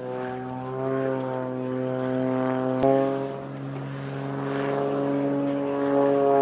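Propeller aircraft engine droning with a steady note that grows louder, with a brief click about three seconds in.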